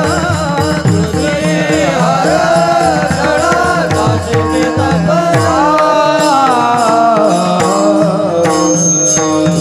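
Marathi devotional bhajan music: a bending melodic line over steady drone tones, with tabla strokes whose low drum glides downward in pitch. The low drum strokes drop out about six seconds in, then return near the end.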